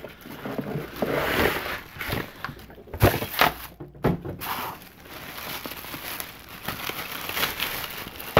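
Clear plastic packaging bags crinkling as a plastic-wrapped desk lamp and its bagged power adapter are handled and pulled from a cardboard box. Two sharp knocks come about three and four seconds in.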